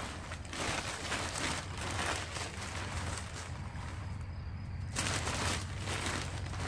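Rustling of a plastic potting-soil bag and loose soil being scooped and handled with gloved hands, in two spells of crinkling, the second starting about five seconds in.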